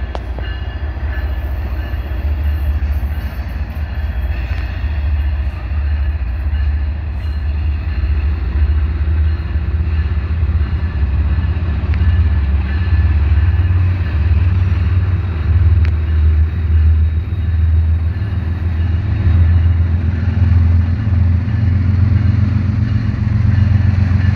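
Diesel-electric freight locomotives of a CSX freight train, led by a GE ES44AC-H, approaching with a deep engine rumble that grows steadily louder. Engine notes come through more clearly near the end as the lead unit draws close.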